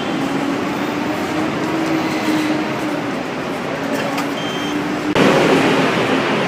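A bus engine runs with a steady drone over a wide haze of traffic noise. About five seconds in, a louder rush of noise sets in.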